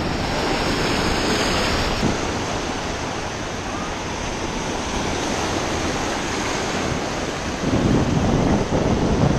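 Small waves breaking and washing over the shallows at the water's edge, with wind noise on the microphone. The low rumble gets louder and rougher near the end.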